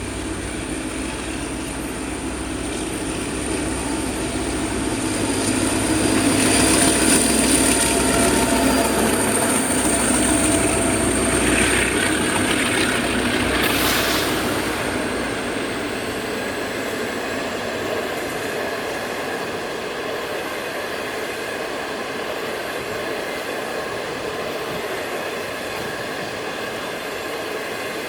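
DF12 diesel locomotive passing with its engine running, followed by a long string of 25T passenger coaches rolling by on the rails. It is loudest from about six to fourteen seconds in, with a thin high whine and a few sharp crackles, then settles into an even rolling noise of the coaches.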